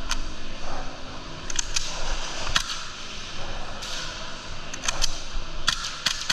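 Airsoft gunfire: sharp shots, some single and some in quick pairs of two or three, scattered every second or so.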